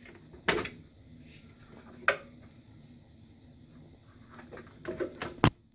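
Snap-on plastic inner door panel of a Kenmore microwave being pried off, its clips letting go with sharp clicks about half a second in, about two seconds in, and several near the end, with some scraping and handling between them.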